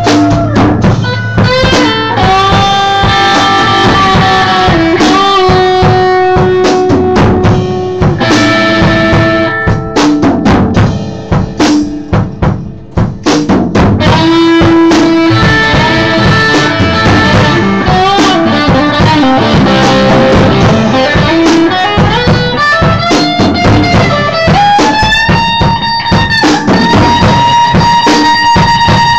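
Live blues jam: electric guitar playing lead lines with bent and held notes over a drum kit keeping the beat. Around the middle the playing turns choppy with short hits, then long sustained bends ring out near the end.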